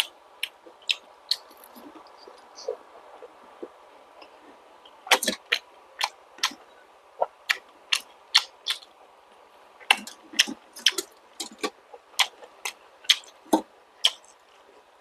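Close-miked chewing of balut (fertilized duck egg) and vegetables: sharp wet clicks and smacks, a few scattered at first, then several a second from about five seconds in.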